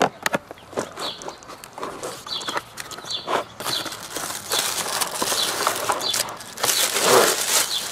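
Toy gun's box and packaging being opened by hand: scattered knocks and clicks, then continuous rustling and crinkling of packaging from about four seconds in.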